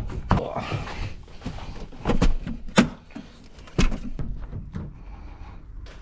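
A handful of sharp thunks and knocks, about five spread across a few seconds, from gear being handled in a vehicle, with a door-like thud among them.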